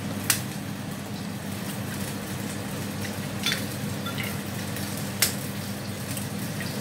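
Induction cooktop running under a nonstick wok heating a little oil: a steady low hum with fan-like noise, broken by a few short sharp clicks about a third of a second, three and a half and five seconds in.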